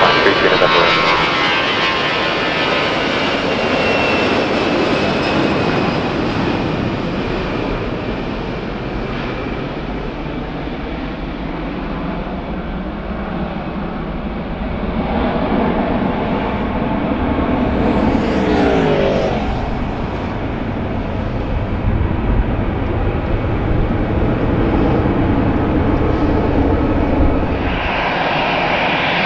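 Airbus A320's CFM56 jet engines at takeoff power as the airliner rolls close past and climbs away: a loud jet roar whose high fan whine falls in pitch as it passes, then a steady roar. Near the end, an abrupt change to another A320 taxiing, its engines running with a steady high whine.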